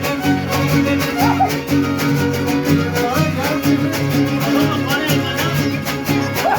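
Live huasteco string trio playing an instrumental passage: a violin melody over fast, steady strumming of guitars with a repeating bass line.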